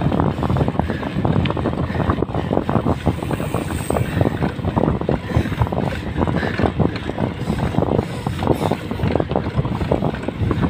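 Wind buffeting the microphone of a handlebar-mounted camera on a moving mountain bike: a steady low rumble broken by many quick, irregular knocks.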